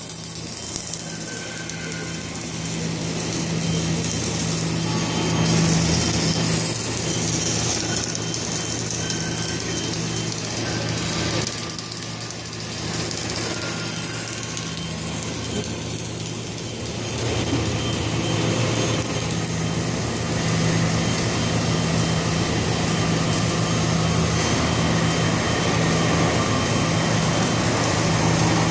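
Rotator-integrated submerged arc welding machine running on a pipe: a steady low hum with a noisy hiss over it, getting somewhat louder about two-thirds of the way through.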